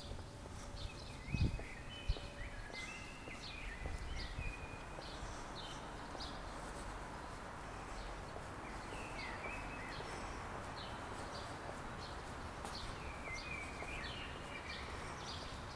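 Footsteps on stone pavement, about two a second, with small birds chirping in short runs and a low steady traffic hum. A couple of dull thumps stand out about a second and a half and two seconds in.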